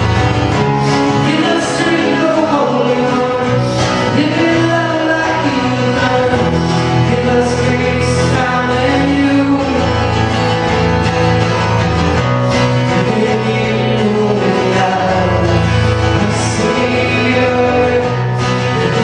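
Live church worship band playing a worship song: a man singing into a microphone over strummed guitars.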